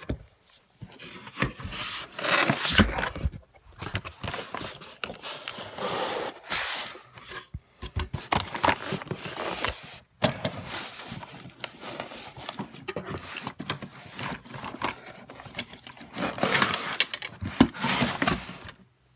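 Cardboard packaging being handled: irregular scraping, rubbing and rustling as a toy train set's box is worked out of a cardboard carton and opened, with a few short pauses.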